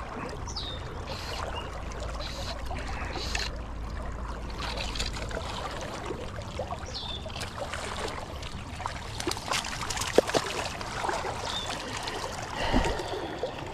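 Fast-flowing river water rushing steadily around a wading angler, with a few brief sharp splashes near the end from a hooked rainbow trout at the landing net.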